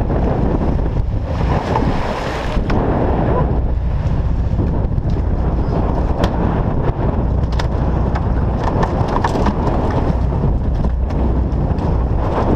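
Strong wind buffeting the microphone, with a heavy low rumble underneath and scattered knocks and clatter on the boat deck.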